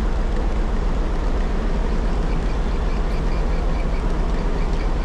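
A boat's motor runs with a steady low hum under a rushing noise of wind and water. Around the middle, for about two seconds, a fishing reel is cranked, a fast light ticking of about eight clicks a second.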